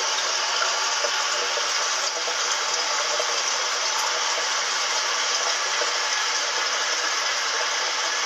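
TOTO Washlet bidet spraying water from its wash nozzle: a steady, even hiss of running water that holds at one level throughout.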